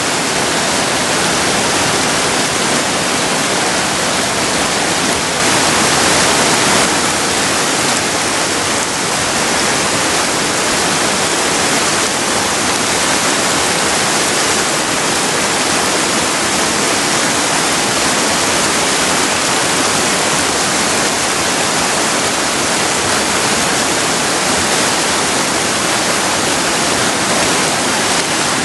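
River rapids rushing: a steady, loud wash of whitewater, briefly a little louder about six seconds in.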